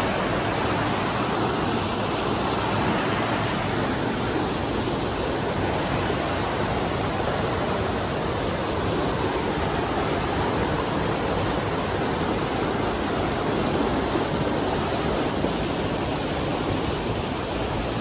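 Creek rapids: whitewater rushing steadily over and between large boulders.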